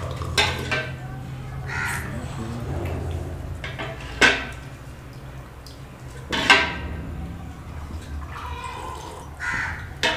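Steel ladle clinking against a large steel basin and glasses as milk is ladled out and poured, with a few sharp clinks several seconds apart.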